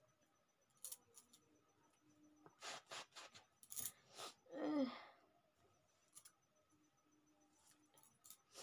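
A person's short breathy sniffs or breaths in a quick run, then a brief falling vocal sound about halfway through, with a few small handling clicks.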